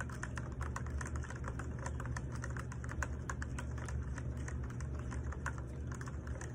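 Plastic spoon stirring a drink in a clear plastic cup, with quick, irregular clicking and scraping against the cup's sides. A steady low hum runs underneath.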